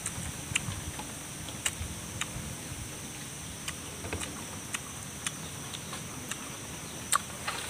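Close-up chewing and crunching of raw vegetables: irregular sharp crisp clicks, about a dozen, the loudest near the end.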